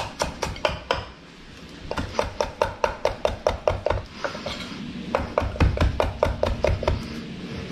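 Kitchen knife chopping parsley on a wooden cutting board: quick, even knife strikes, about five a second, in runs broken by a short pause about a second in.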